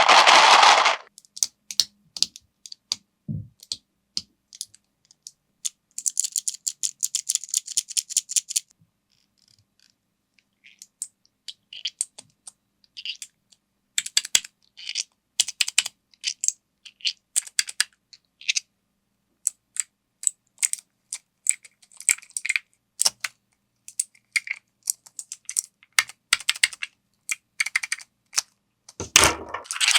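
A 3D-printed plastic fidget clicker (PETG and PLA parts) clicking in irregular runs of sharp clicks, with a fast, even run of about ten clicks a second between six and eight and a half seconds in. A louder burst of noise comes at the start and a thump near the end.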